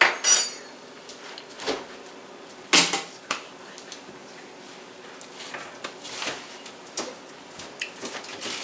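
Eating dessert with a big spoon: a few short clicks and scrapes spread over several seconds, the loudest a little under three seconds in.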